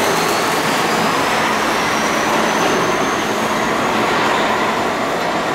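R68 subway train pulling out of the station: a steady loud rumble of steel wheels on the rails, with a thin high whine that rises slowly in pitch.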